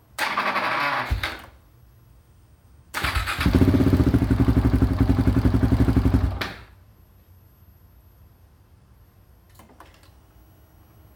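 KTM 690 single-cylinder engine being cranked on its electric starter twice, a short burst and then a longer one of about three seconds with a steady pulsing beat. Both stop suddenly and the engine is not left running, a hard start.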